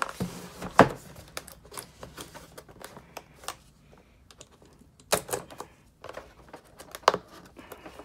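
Cardboard box being handled while a utility knife cuts through its tape seals: scattered sharp clicks and taps, with louder snaps about a second in, about five seconds in and about seven seconds in.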